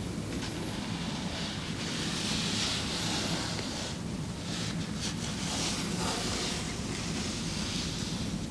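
A cat breathing close to the microphone: two slow, soft swells of breath, with a few light clicks and a steady low hum underneath.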